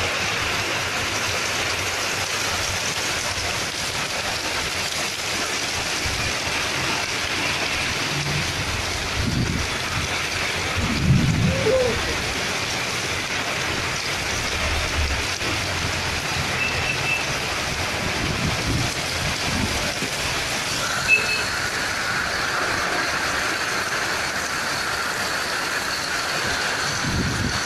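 Heavy rain pouring down in a dense, steady hiss, with a few low rumbles about ten seconds in.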